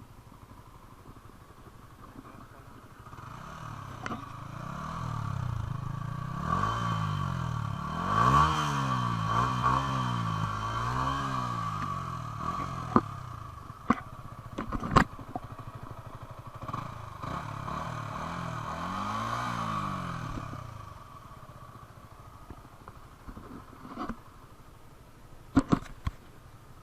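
Yamaha R15 V3's single-cylinder 155 cc engine running through its stock exhaust, revved in several quick blips that rise and fall in pitch, with three close together about eight to twelve seconds in and one more later before it settles back and fades. A few sharp clicks sound in between.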